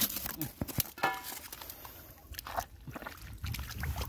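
Hands splashing and sloshing in shallow muddy water, with a few sharper splashes among the irregular swishing.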